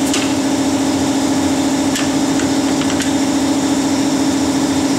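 A steady mechanical motor hum from shop equipment, with a few light knocks as a brass hammer taps on the strut's lower mounting bolt to drive it out: one at the start, then two more about two and three seconds in.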